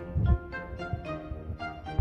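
Background music led by a bowed violin, playing a run of short notes, with a low thump about a quarter second in.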